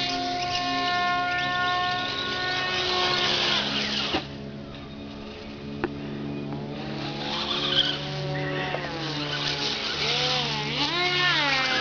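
Electric motor and propeller of a small foam RC F-22 model plane whining at a steady pitch, fading back about four seconds in, then rising again; near the end the pitch swings up and down over and over.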